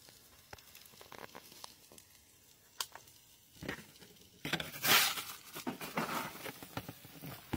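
A few light clicks and taps, then about four and a half seconds in a louder scraping rush of about two seconds: metal sliding against metal as the cooked pizza is brought out of the homemade electric pizza oven.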